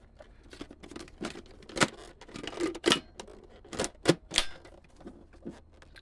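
Plastic clicks and knocks from a ZISIZ cordless stick vacuum's clear plastic dust cup and its release catch being pressed and worked by hand: an irregular run of sharp clicks, the loudest few in the middle.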